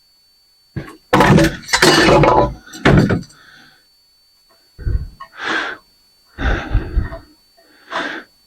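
Steel ceiling fan parts clanking and clattering as they are handled and dropped. A long rattling clatter comes about a second in, followed by a sharp knock and then several shorter knocks and clinks.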